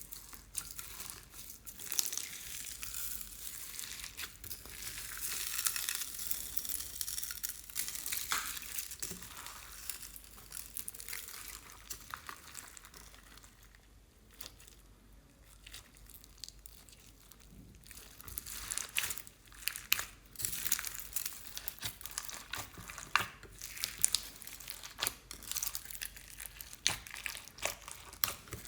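Slime being squished and kneaded by hand, making a dense crackle of small clicks and pops. It eases off around the middle, then comes back as sharper, separate clicks.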